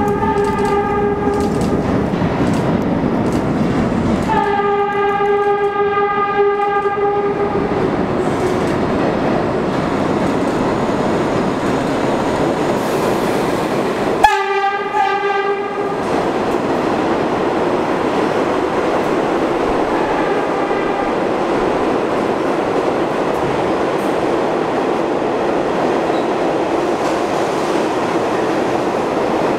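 Vintage R33/R36 subway train running express through a station and sounding its horn. There is a short blast at the start, a longer blast from about four to eight seconds in, and another short blast about fourteen seconds in. Under and after the horn, the cars rumble and clatter steadily past the platform.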